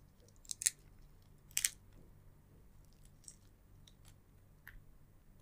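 A few crisp crackles from shrimp shells in the eating: a close pair about half a second in, the loudest pair about a second and a half in, then fainter ones.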